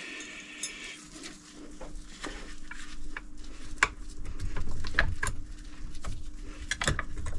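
Metal parts of a hydraulic jack clinking and knocking as they are handled and fitted back together by hand, with a few sharper clacks in the second half.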